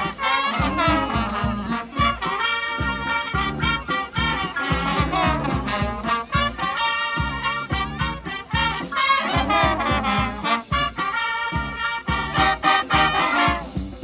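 Street brass band playing a swinging tune live: trumpets, saxophones and trombones over a sousaphone bass line and a steady drum beat.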